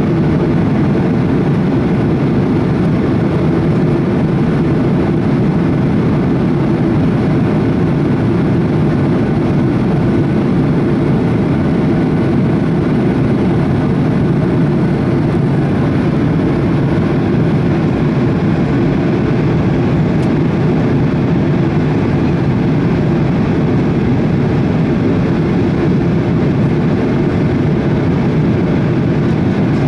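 Cabin noise inside a Boeing 737-800 on approach to landing: a loud, steady roar from its CFM engines and the airflow over the fuselage, deepest in tone and unchanging throughout.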